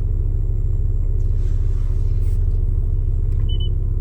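Car engine idling, heard as a steady low rumble inside the vehicle's cabin.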